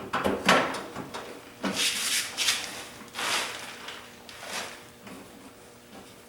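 A string of clunks and scrapes from parts being handled and moved, several separate knocks and rubs over a few seconds.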